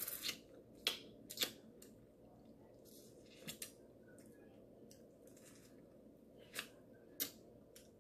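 Close-up eating sounds: sharp, wet lip smacks and sucking as fingers are licked clean of seafood boil butter sauce while eating shrimp. About seven smacks are spread out, several in the first second and a half and two more near the end.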